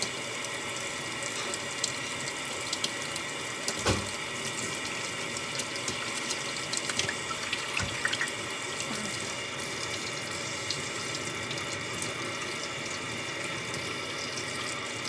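Kitchen tap running steadily into a sink while something is washed up with soap, with a couple of brief knocks.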